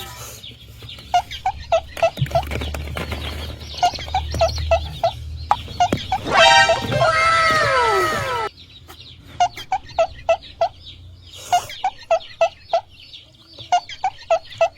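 Chickens clucking in quick runs of short, clipped notes, with a louder, longer squawk about six and a half seconds in.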